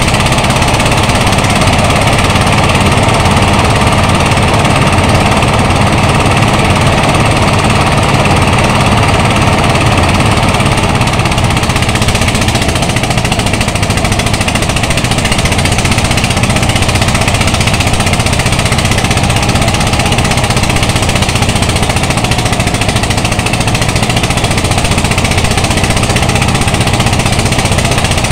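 Portable engine-driven rice thresher running loudly and steadily under load, its engine and threshing drum working as rice stalks are fed in.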